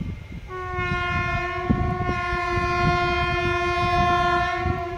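An Indian Railways express locomotive's horn sounded in one long, steady blast of about four seconds, the usual warning ahead of a level crossing, over a low, irregular rumble.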